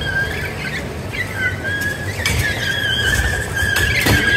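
Small remote-control combat robots driving and shoving in a sumo bout: a steady, slightly wavering high-pitched whine, with a sharp knock about four seconds in.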